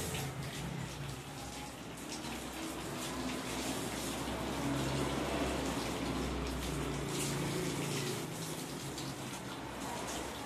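Water from a garden hose pouring over a shampooed monkey and splashing off a plastic chair onto the wet floor, a steady running and splashing.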